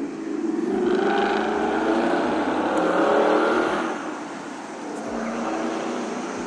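Exhaust note of a 2018 Ford Mustang GT's 5.0 L Coyote V8 through an AWE Touring cat-back exhaust, building in pitch and loudness as the car accelerates, then easing off about four seconds in.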